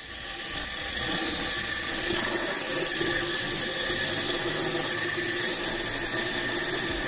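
Single-cylinder Stirling hot-air engine model running steadily, with a rapid mechanical clatter from its piston, linkage and flywheel.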